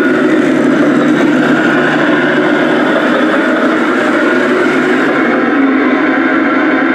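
A battery-powered toy vehicle running steadily with a continuous motor and engine-like drone.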